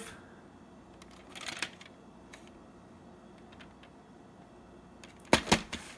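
Hard plastic clicks and knocks from a VHS cassette and its plastic clamshell case being handled: a few faint clicks in the first half, then a quick run of louder clicks and knocks near the end.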